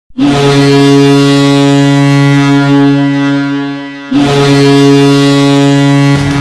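Färjestad BK's ice hockey goal horn, a sound-effect horn rather than a real air horn, sounding two long low blasts: the first about three seconds long and fading away, the second starting about four seconds in and running about two seconds. Just before the end the goal song's rock music cuts in with drums.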